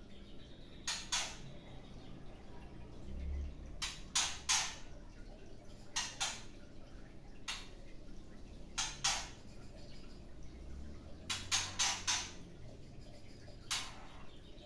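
Short harsh clicking call notes from a caged bird, mostly in pairs or threes, repeated every second or two.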